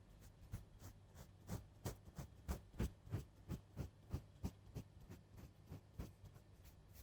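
A run of soft, irregular taps and clicks, about two or three a second, loudest in the middle stretch.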